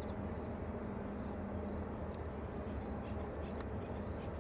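Distant BNSF double-stack intermodal train rolling through town: a steady low rumble, with short high chirps repeating about every half second over it and a single faint click about three and a half seconds in.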